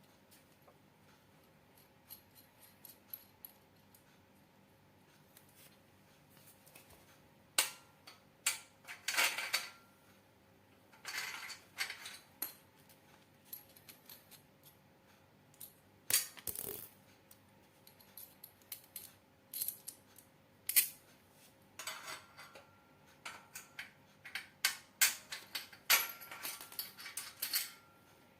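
Small metal parts and tools clinking and clanking as they are handled, in irregular sharp knocks, some ringing briefly, with denser clusters around the middle and near the end.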